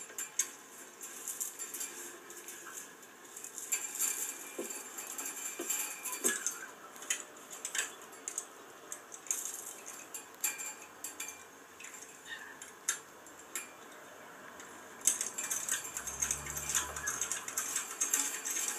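Plain steel fence wires clinking, rattling and scraping against each other and the metal fittings as they are worked and tied off by hand, in irregular clicks that grow busier near the end.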